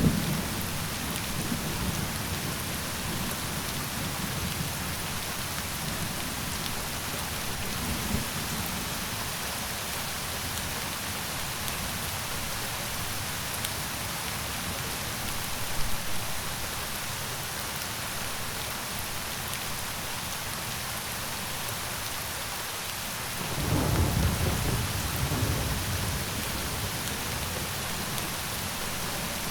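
Steady rain hiss throughout, with low rolls of thunder rising and fading several times; the strongest roll comes about three-quarters of the way through and lasts a few seconds.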